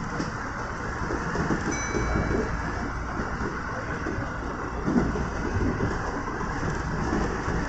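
Kintetsu 1030-series electric train running along the line, heard from inside the front car: a steady rumble of wheels on rails and running gear. A brief faint high tone comes in about two seconds in.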